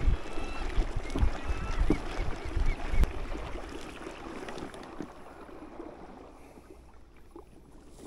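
Wind and water noise around a small boat moving on a lake, with irregular low buffeting thumps, dying away over the last few seconds. A few faint, thin high tones sound in the first three seconds.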